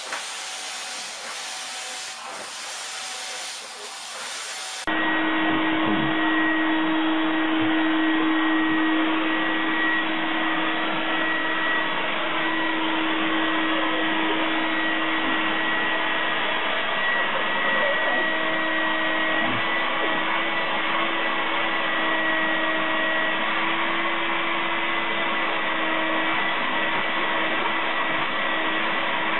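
Vacuum cleaner running: first a hissing rush of air, then, after a sudden cut about five seconds in, a louder steady motor hum with a high whine held at one pitch.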